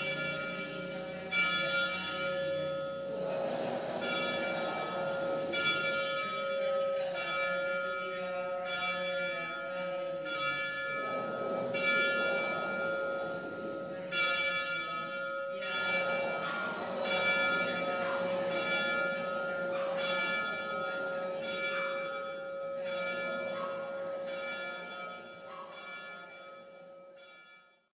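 Church bells ringing, strike after strike roughly every second, each note ringing on under the next with a steady low hum. The ringing fades out near the end.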